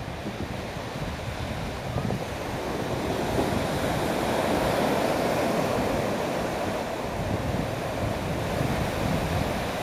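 Surf breaking and washing up a sandy beach, with wind rumbling on the microphone. The wash swells louder about three seconds in and eases after about six.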